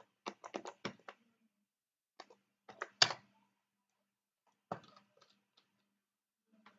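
Computer keyboard keystrokes and mouse clicks: a quick run of about eight taps in the first second, a few more around two to three seconds in, and a single click near five seconds.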